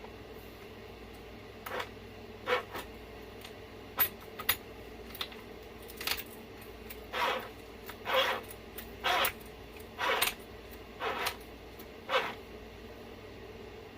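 A string of short clicks and clinks from RC truck parts being handled during a differential rebuild. There are a couple of sharp ticks, then roughly one clink a second for several seconds.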